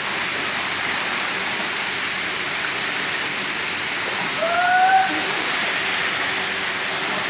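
Steady rushing and splashing of water churned by a mass of Nile tilapia thrashing as a seine net is drawn through them. A brief call, rising slightly in pitch, cuts in about two-thirds of the way through.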